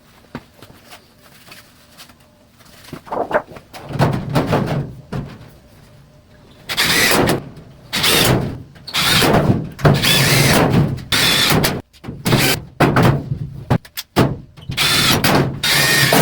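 Power drill driving screws in repeated whining bursts of about a second each, starting about four seconds in, with small knocks and clicks between them.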